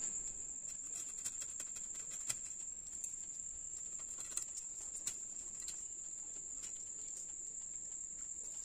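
Faint scattered clicks and crunches of a whole hilsa being cut into pieces against a boti, the upright curved blade, over a steady high-pitched whine.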